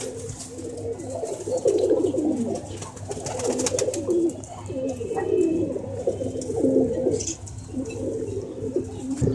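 Domestic pigeons cooing over and over, low rolling coos following one another without a break.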